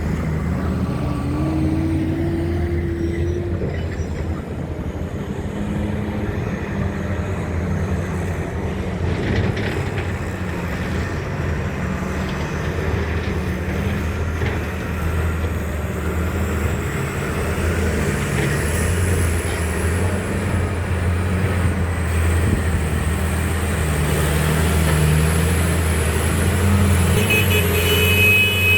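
Heavy diesel engine of a Hitachi 870 excavator running steadily under load, with a faint high whine that rises and falls over the last part.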